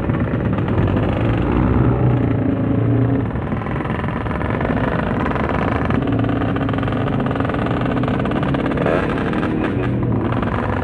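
Motorcycle engine running while riding, over a steady rush of wind noise. The engine is a little louder for the first three seconds, then eases off.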